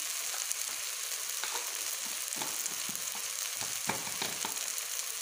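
Potato, eggplant and tomato mash sizzling in oil in a kadai, with a spatula scraping and pressing against the pan several times, most sharply about four seconds in.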